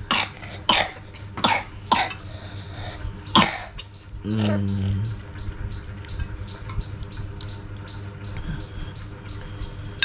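A person coughing in about five short bursts, followed by a brief low hum about four seconds in.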